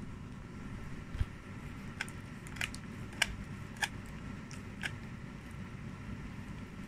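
Husky chewing a dried lamb ear with fur on it, its teeth crunching the cartilage in sharp, irregular cracks about once every half second to a second, over a steady low hum.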